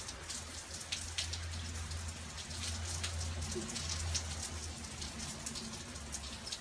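Rain falling on pebbles and paving stones: a steady hiss with many sharp, irregular drop ticks, over a low steady hum.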